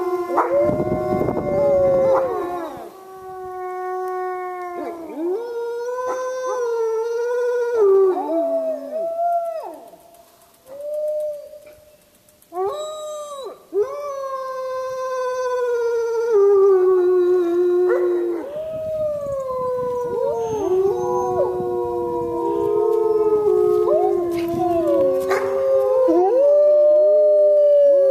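Wolves howling in chorus, several long gliding howls overlapping at different pitches. The chorus thins to a brief lull a little before the middle, then swells again.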